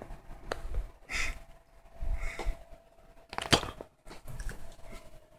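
Scattered light clicks and rustles, with two short hissy puffs in the first couple of seconds and a sharper cluster of clicks about three and a half seconds in.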